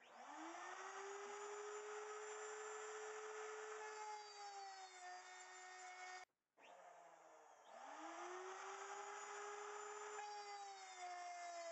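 Wood router mounted in a router table, spinning up with a rising whine, then dropping slightly in pitch as the bit cuts a spline slot along a board. The sound cuts out briefly a little past halfway, then the router spins up again and cuts the second slot.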